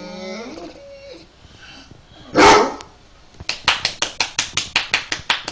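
A dog whines and groans with a wavering pitch for about a second, then gives one loud bark, demanding to be scratched. After that comes a quick, even run of short rasping strokes, about five a second.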